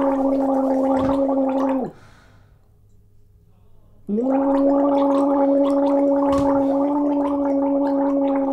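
Loud, exaggerated snoring: two long, rattling snores held on a steady pitch. The first ends about two seconds in, and the second starts about four seconds in.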